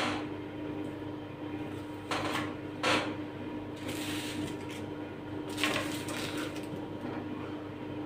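Hands shaping puff-pastry börek on a wooden board: a few short rustling and tapping handling noises over a steady low hum.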